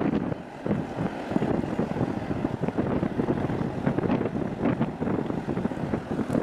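Wind buffeting the microphone in uneven gusts, a rough low rumble that rises and falls.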